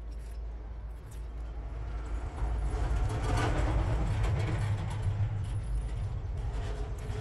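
A motor vehicle passing by: a low rumble that swells about two and a half seconds in and slowly fades toward the end.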